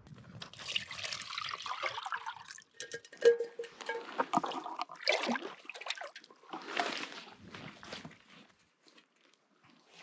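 Water pouring and splashing in several short spells, with a few clicks and knocks in between.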